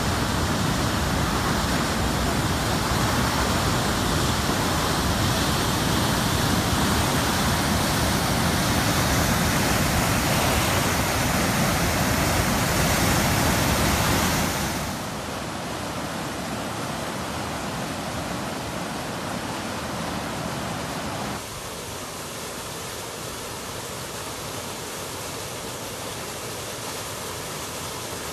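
Fast-flowing floodwater rushing as a steady noise. It is loudest for the first half, drops suddenly about halfway through, and drops slightly again about three-quarters of the way through.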